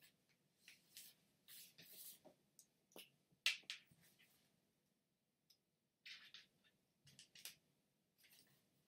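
Folded origami paper rustling and crinkling in the hands in short, scattered bursts, with one sharp click about three and a half seconds in, then a glue stick rubbing on the paper near the end.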